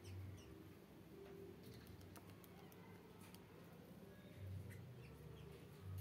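Faint chirps of small aviary birds, with scattered light clicks and ticks. A low hum underneath swells a few times, the loudest thing present.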